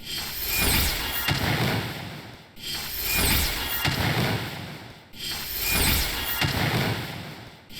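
A short "broil" sound effect played on a loop, the same rough, rumbling clip starting again about every two and a half seconds, each pass swelling and then fading away.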